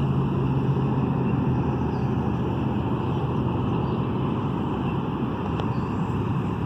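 Steady running noise with a constant low hum, from a Volantex Vector 28 RC boat running on the water.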